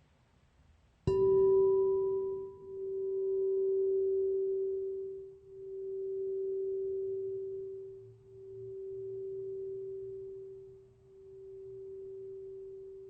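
A gong struck once, ringing on in one steady pure tone that swells and fades about every three seconds as it slowly dies away. It is one of four strikes rung to mark the end of four years.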